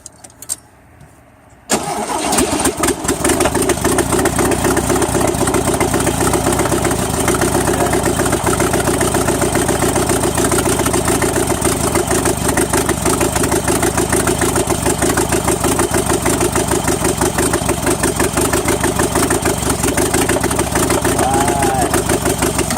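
A Volkswagen Type IV 2-litre air-cooled flat-four starts about two seconds in and then idles steadily. The owner says the ignition randomly misses sparks to the plugs, so the engine skips, and wonders whether the condenser is at fault.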